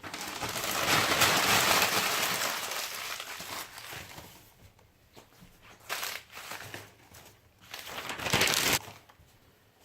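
Newspaper being crumpled and laid in the bottom of a wood stove's firebox: a long stretch of crinkling and rustling over the first few seconds, then two shorter bursts near the end.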